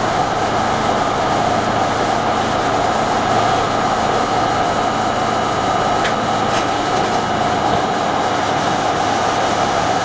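Steady hum of an R32 subway car's onboard equipment heard inside the car, with a few faint clicks about six seconds in and no wheel clatter.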